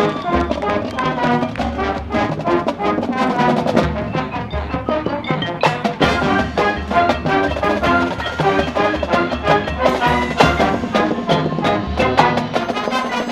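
High school marching band playing: brass and winds carry the music over repeated drum and percussion hits.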